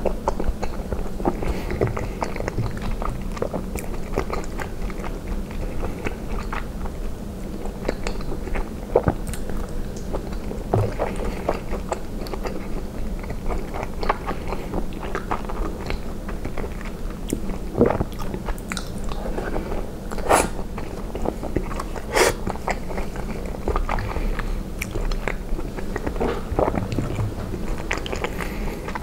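Close-miked mouth sounds of a person chewing cheese and spinach ravioli in tomato sauce: soft, wet chewing throughout, with scattered sharp clicks, over a steady low hum.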